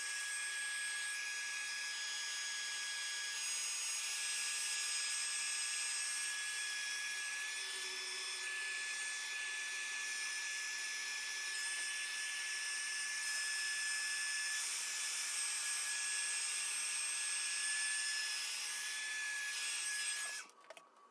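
Small handheld heat gun running steadily over wet epoxy resin, its fan motor giving a high whine over a rush of air. It cuts off near the end.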